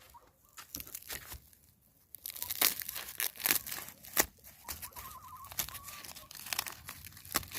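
The dry, fire-charred husk of an ear of corn roasted in campfire ashes being torn and peeled back by hand: a run of crisp crackling tears, sparse at first and much busier from about two seconds in.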